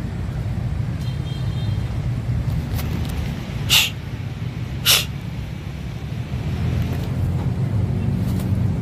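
Steady low rumble of distant city traffic, with two short, sharp hissing noises about a second apart midway through.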